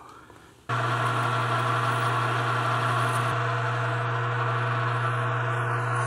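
Metal lathe running steadily, a constant machine hum with a strong low drone, coming in suddenly less than a second in.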